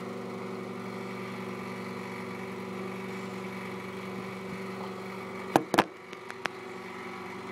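Microwave oven running with a steady electrical hum while heating a bowl of oatmeal, with a few sharp clicks a bit over five and a half seconds in.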